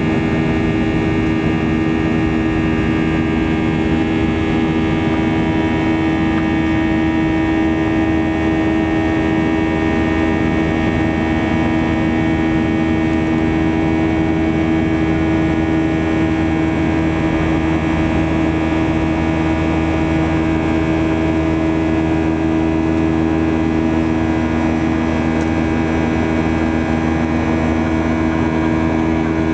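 CFM56-7B turbofan engines of a Boeing 737-800 heard from inside the cabin beside the wing: a steady drone made of several held tones, the strongest low-pitched, over an even rumble.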